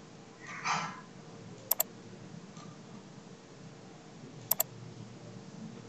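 Computer mouse clicking twice, about a second and three quarters in and again about four and a half seconds in, each click a quick pair of sharp ticks. A brief soft hiss comes under a second in.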